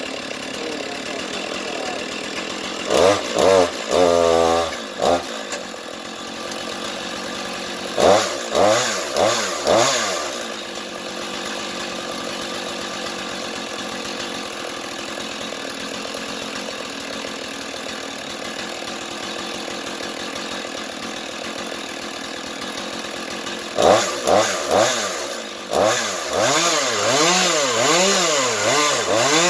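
Chainsaw on a rail-guided chainsaw mill running under load while ripping slabs from walnut burl, the engine speed swinging up and down repeatedly about three seconds in, about eight seconds in, and again over the last six seconds. It is cutting with a regular chain rather than a ripping chain, which the owner says makes it pull a little.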